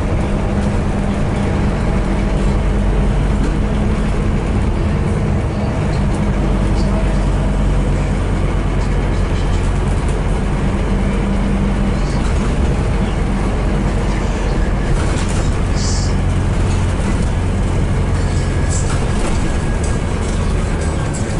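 Scania DC9 diesel engine of a Scania N230UD double-decker bus, heard from the upper deck while the bus is driving. Its low note changes a few times, with light rattles in the second half.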